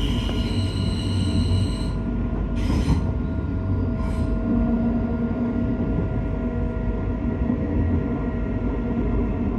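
Train wheels squealing on the rails, the high squeal stopping about two seconds in, then the train running on with a steady rumble and hum. Two brief sharp squeals come a little after that.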